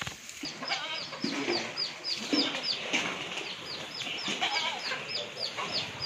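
A small bird peeping: a rapid run of short, high notes, each falling in pitch, about four a second.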